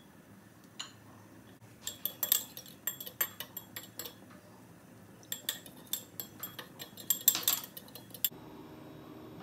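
A metal spoon, then a fork, clinking and scraping against a small ceramic bowl while stirring a soy dip. The clinks come in two quick flurries with a short lull between.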